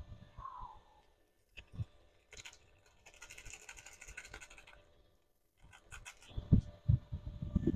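Rustling and scratching of a small Maggi seasoning sachet as it is opened and its powder is shaken into a steel pot, followed near the end by a few dull thumps.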